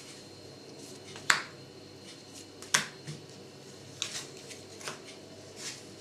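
Sleeved trading cards being handled and laid down on a playmat: a handful of sharp snaps, the loudest a little over a second in and just before three seconds in, with softer ones after.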